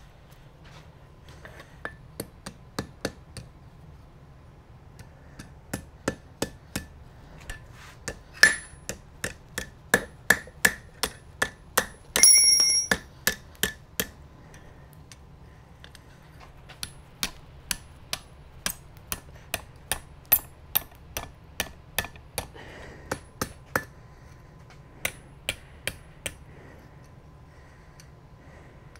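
Hand hammer striking red-hot rebar on an anvil to forge a hook. The blows come in runs of quick strokes, about two a second, each with a bright metallic ring, and one longer, louder ring about twelve seconds in.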